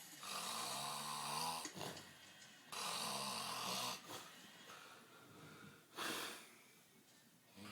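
A man snoring in his sleep: three loud snores about three seconds apart, the first two long and the last one short, with quieter breathing between them.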